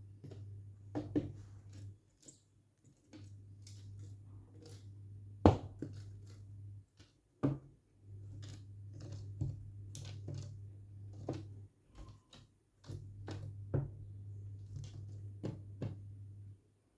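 A low steady hum that drops out and comes back every few seconds, with scattered clicks and knocks over it; the loudest knocks come about five and a half and seven and a half seconds in.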